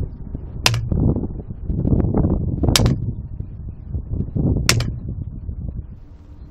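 A black-painted Chinese telescopic steel baton strikes dry-to-damp pine sticks on a concrete block three times, each a sharp crack about two seconds apart.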